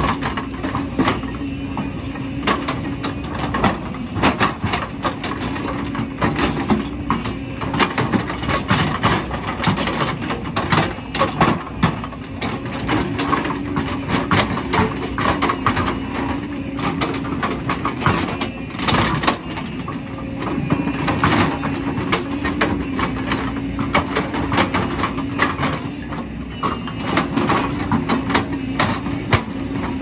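JCB tracked excavator working: its diesel engine and hydraulics run with a steady hum while the steel bucket scrapes and knocks through stony soil, giving many sharp clanks and clicks.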